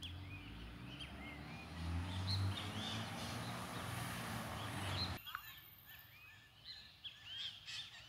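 Many birds chirping in short, repeated calls over a steady low background rumble, which cuts off abruptly about five seconds in, leaving the chirping on a quieter background.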